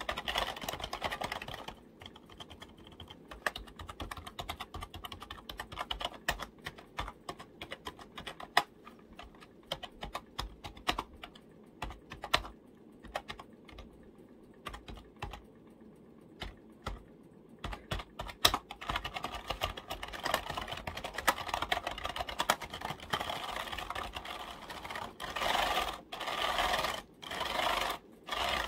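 Fingers tapping on computer keyboard keys: an irregular run of separate clicks that turns into denser, louder flurries in the last few seconds.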